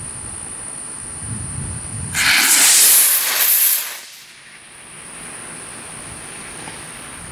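Estes D12 model rocket motor igniting about two seconds in and burning with a loud hiss for just under two seconds as the rocket lifts off, then cutting off. Before the launch, wind buffets the microphone with a low rumble.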